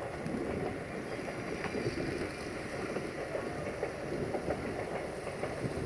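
Steady low rumble of a passenger train moving away down the track, with a few faint clicks from its wheels.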